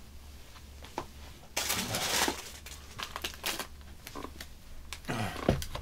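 Crinkling and rustling of something handled close to the microphone, with a louder burst of crinkling about a second and a half in and scattered small knocks, over a faint low hum.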